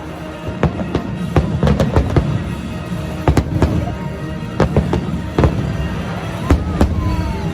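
Fireworks going off: an irregular series of sharp bangs, several close together, over a continuous low rumble, with music playing alongside.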